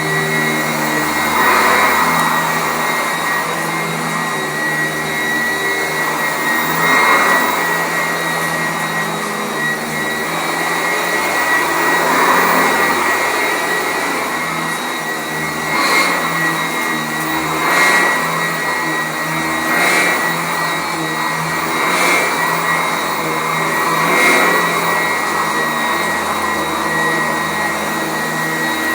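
Sanitaire SC899 commercial upright vacuum running on carpet, a steady motor hum with a high whine. The sound swells and falls back about every two seconds as the vacuum is worked back and forth.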